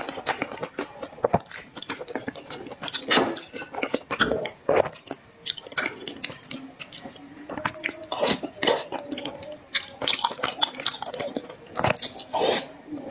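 Close-up chewing and biting of zongzi (sticky rice dumplings): irregular mouth clicks and smacks.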